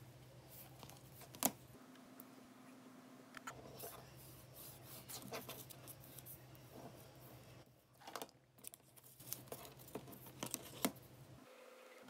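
Paper being handled and a metal stylus scoring fold lines into it along a ruler on a cutting mat. Faint scratching and rustling with scattered light clicks and taps, and two sharper clicks, one about a second and a half in and one near the end.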